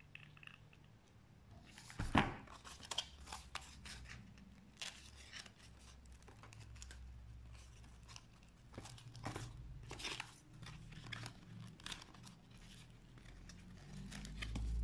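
Crinkling and rustling of glitter foam sheets and the plastic table cover as hot-glued pieces are handled and pressed together, in scattered short crackles. One sharper crackle comes about two seconds in.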